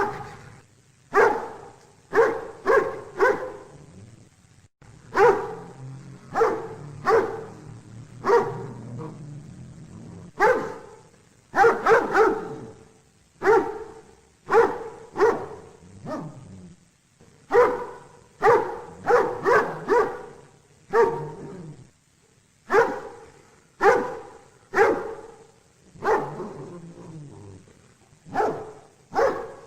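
A dog barking over and over, often in quick runs of two to four barks with short pauses between.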